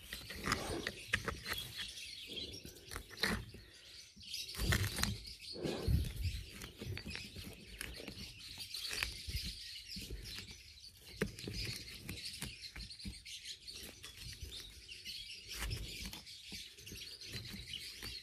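Small birds chirping steadily, over irregular scraping, picking and knocking of a metal hand tool digging at rotten wood and a rock lodged in a bonsai trunk's hollow.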